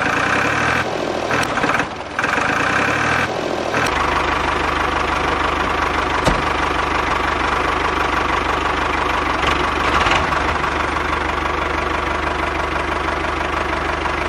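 Tractor engine idling steadily with a fast, even low beat, settling in about four seconds in after a few seconds of stop-start higher-pitched sound.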